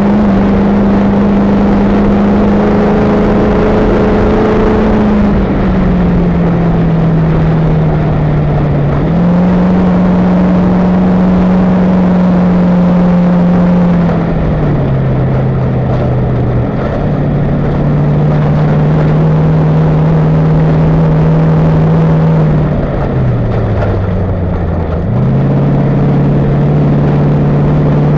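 Toyota Tundra race truck's engine running hard, its steady note dropping and then picking up again several times, over a dense rumble of tyre and wind noise picked up in the front wheel well.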